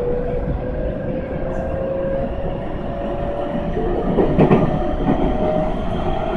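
Tobu 20050 series commuter train accelerating away from a station, heard from inside the car: the traction motor whine rises steadily in pitch. The wheels clatter over rail joints and points about four to five seconds in.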